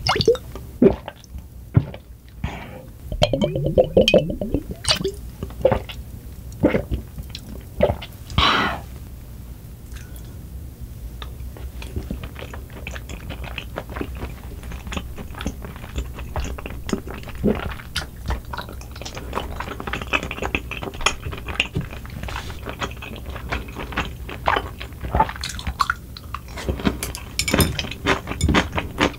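Close-miked eating sounds: chewing and wet mouth sounds from soft rice cakes and rice, with scattered clicks and taps, likely from the wooden spoon.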